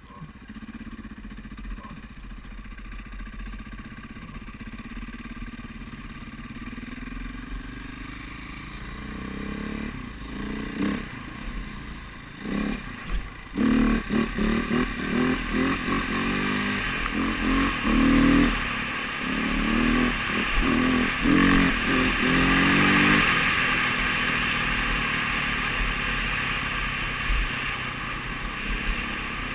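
Dirt bike engine under way, its pitch climbing over the first several seconds, then revved in many short bursts as the throttle is snapped open and shut through the middle, before settling into steadier running. Wind and tyre noise hiss underneath throughout.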